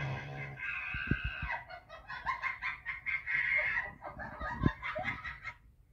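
Chickens clucking in a run of short, quick calls, with a few low thuds in between, the loudest about three-quarters of the way through.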